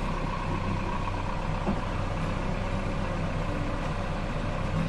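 A sailboat's inboard engine running steadily with an even low hum, holding the boat head to wind.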